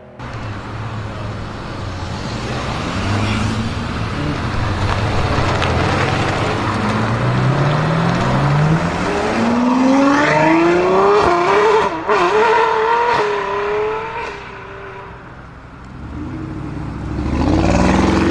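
The tuned 840 hp Audi RS Q8's twin-turbo V8 accelerating hard, its note climbing in pitch through several upshifts and peaking about two-thirds of the way in. It then drops and fades as the car pulls away, and revs climb again near the end.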